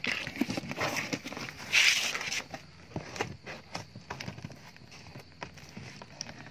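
Cardboard box being handled and closed: flaps pressed and rubbed, with scattered knocks and taps and one loud brief scraping rustle about two seconds in.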